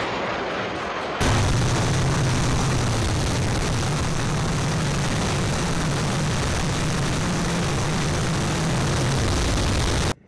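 Twin 120 mm electric ducted fans of a large model jet running at power: a steady, loud rushing noise. It steps up suddenly about a second in and cuts off abruptly near the end.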